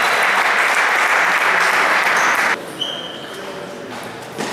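Spectators applauding a won point in a table tennis match, the clapping ending suddenly after about two and a half seconds and leaving the hall much quieter.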